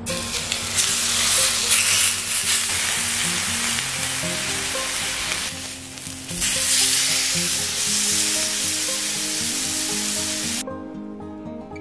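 Food sizzling in a hot frying pan, loud and steady, dipping briefly midway and cutting off abruptly near the end. Soft background music runs underneath.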